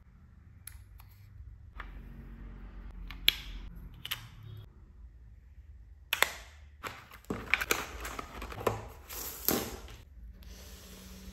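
Plastic clicks and handling of a wireless earbud charging case: a sharp click about three seconds in, then a run of snaps and clicks from about six to nine and a half seconds as its hinged lid is opened and shut.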